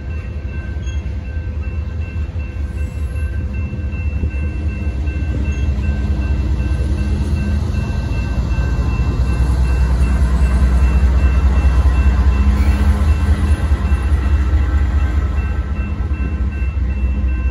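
Freight train hopper cars rolling past a grade crossing, followed by the rear pusher locomotive, a GE AC44CW diesel, whose engine rumble builds and is loudest from about ten to fourteen seconds in. The crossing signal bells ring steadily throughout.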